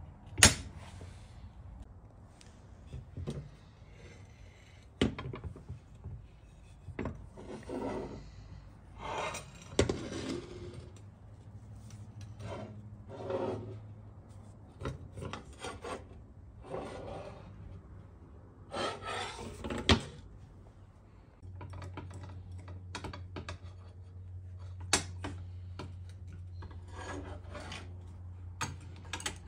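An old brush axe, iron head on a wooden handle, handled on a steel workbench: several sharp knocks as it is set down and turned over, with stretches of rubbing and scraping between them. Near the end, metal wrenches clink against it, over a steady low hum that comes in about two-thirds of the way through.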